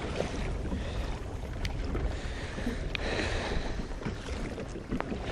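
Wind rumbling on the microphone over water lapping against a kayak hull at sea, with a few faint clicks.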